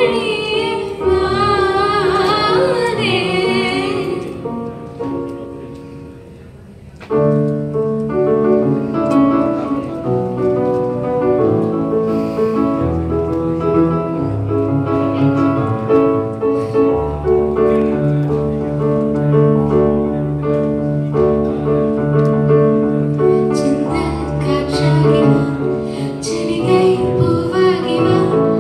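Live Tamil film-song medley: a woman singing with vibrato over keyboard accompaniment, her line ending about four seconds in. After a short fade, an electronic keyboard plays a piano-sound interlude of chords over a bass line.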